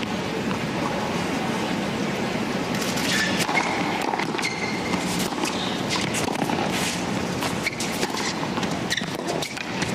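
Tennis rally on a hard court: a serve, then a string of sharp racket strikes on the ball from about three seconds in, over a steady stadium crowd murmur.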